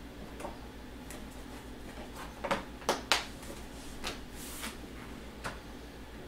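Clear plastic accessory packaging being handled and set down: a few sharp clicks and knocks about two and a half to three seconds in, a brief crinkly rustle, then one more tap. A steady low hum runs underneath.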